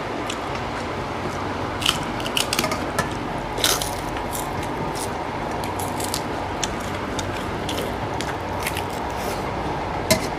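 Hands squishing rice and chicken curry together on steel plates as two people eat by hand. Scattered sharp clicks of fingers and utensils against the steel come and go over a steady background noise.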